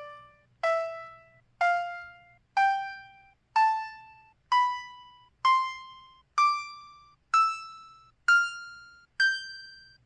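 canU801Ex phone key tones: about ten short bell-like electronic notes, roughly one a second, each struck and then fading. The pitch steps higher with each note, like a rising scale, as the keys are demonstrated one after another.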